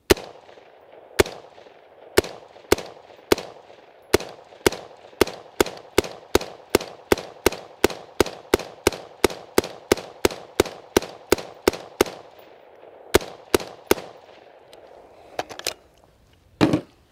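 BCM AR-15 rifle firing a full 30-round magazine in steady semi-automatic fire, about two shots a second and quickening to about three, with a short pause before the last three shots. A few softer clacks follow. The rifle has never been cleaned or oiled and keeps cycling without a stoppage.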